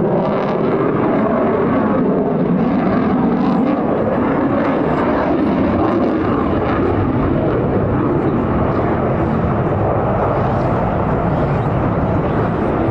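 F-22 Raptor's twin Pratt & Whitney F119 turbofan engines giving loud, steady jet noise as the fighter flies its display.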